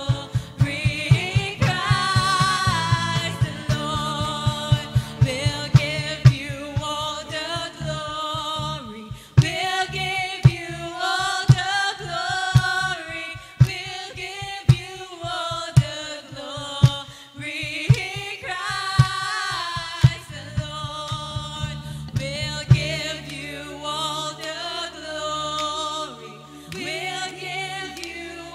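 Live worship music: voices singing a melody over a band with a steady beat. About three-quarters of the way through the beat drops out, leaving held low notes under the singing.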